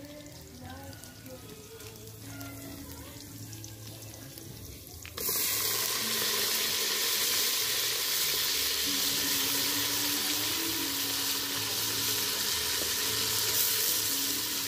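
Chicken pieces sizzling in a hot pot over a wood fire. The sizzle starts suddenly about five seconds in as the meat goes into the pot, then holds steady and loud.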